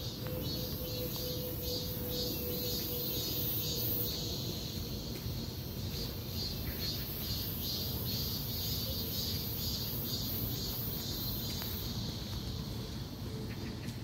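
Outdoor ambience under trees: a steady, pulsing high-pitched chorus of birds or insects, over a low rumble of wind and handling noise on the phone's microphone.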